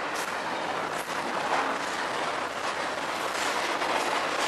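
Double-stack intermodal freight train rolling past at close range: a steady rush of wheels on rail, with a few sharp clicks as wheels cross the rail joints.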